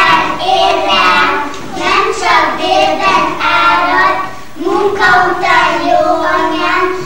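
A group of young children singing together in unison, with a short pause between phrases a little past the middle.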